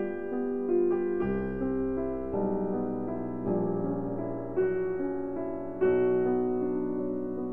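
Background piano music: an unhurried melody of single notes, each one struck and left to fade.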